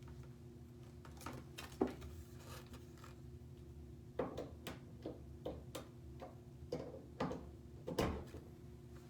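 Scattered light clicks and knocks of a plastic facial steamer being handled and set up, about a dozen, the loudest about two seconds in and again near the end, over a faint steady hum.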